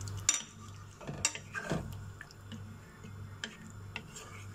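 A cooking spoon stirring stock with potatoes in a coated pot, knocking against the pot in a few sharp clicks, the loudest just after the start, over a low steady hum.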